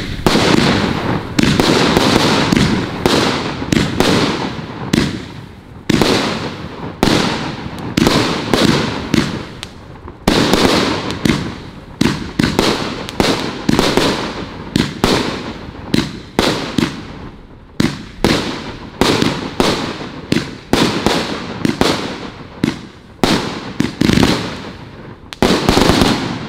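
The 'Republican's Triumph' multi-shot consumer firework firing a rapid string of aerial shells, each a sharp bang followed by a short decay, about one to two shots a second without a break.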